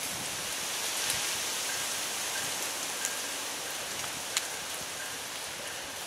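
Steady outdoor background hiss with no train passing, broken by a few faint short ticks.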